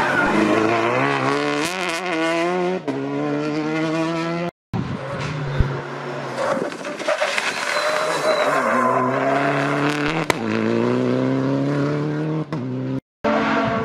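Rally car engines revving hard through a corner, the pitch climbing and then dropping again and again at gear changes and lifts, with tyres squealing. The sound breaks off abruptly twice.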